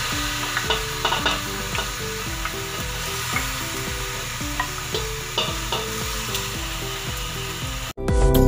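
Pork spare ribs sizzling as they fry in a little oil in a stainless steel pot, with occasional knocks and scrapes of a wooden spatula stirring them. About eight seconds in the sizzle cuts off suddenly and louder background music takes over.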